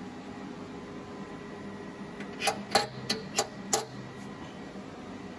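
Five quick knocks, bunched in just over a second about halfway through, as the submersible pump's cable is handled against the aluminium tank. A steady low room hum runs underneath.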